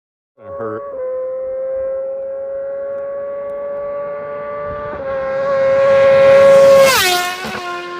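A superbike passing at speed: a high-revving engine note at steady revs grows louder as it approaches, peaks about seven seconds in, then drops sharply in pitch as the bike goes past and moves away.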